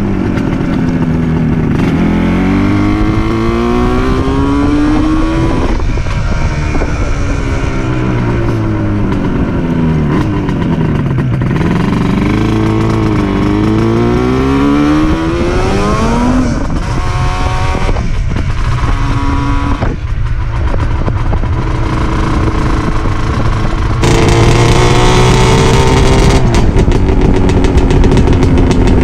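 1980 Yamaha RD400's air-cooled two-stroke parallel twin being ridden, its pitch repeatedly climbing and falling as it accelerates, changes gear and slows. It gets louder for the last few seconds.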